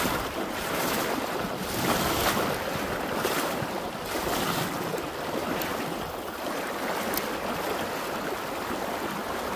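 Fast-flowing creek water rushing over riffles, a steady rushing noise, with some wind buffeting the microphone.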